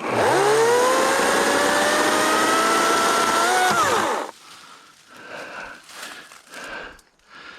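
EGO 14-inch battery-powered chainsaw cutting a tree branch. Its electric motor whines up to speed at once, runs for about four seconds with its pitch creeping slightly higher, then winds down.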